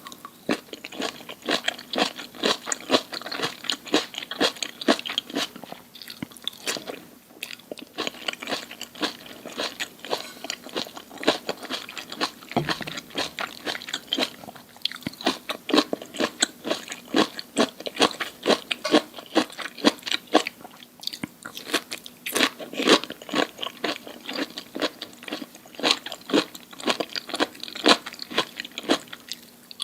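Close-miked chewing of crunchy food: dense, irregular crunching bites with a few brief pauses.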